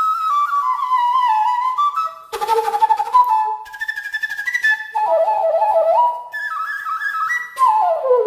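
Background instrumental music: a melody of held notes stepping up and down.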